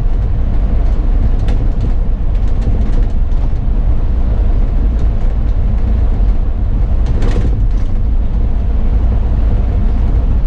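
A single-deck or double-deck bus on the move, heard from inside: a steady low engine and road drone with light rattles, and a brief louder noise about seven seconds in.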